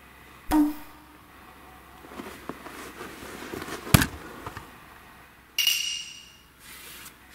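Scattered thumps and shuffling of a person crawling into a snow cave and sitting down, with a sharp knock about four seconds in. A short bright ringing tone starts suddenly about two-thirds of the way through and fades within a second.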